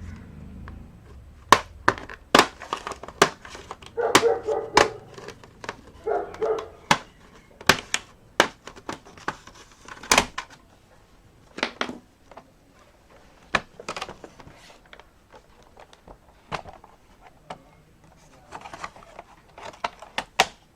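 Sharp plastic clicks, taps and knocks from a laptop being taken apart by hand, many single clicks at uneven intervals. A dog barks a few times in the background in the first third.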